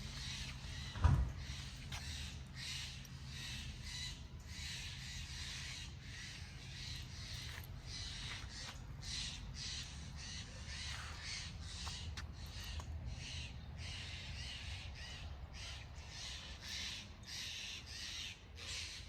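Birds calling over and over in short, harsh, caw-like calls, with a steady low rumble underneath. A single loud thump about a second in.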